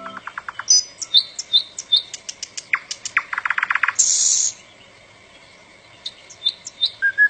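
Songbirds chirping, with a quick trill of rapid notes about three seconds in and a brief hissy burst about four seconds in; a held music chord ends right at the start.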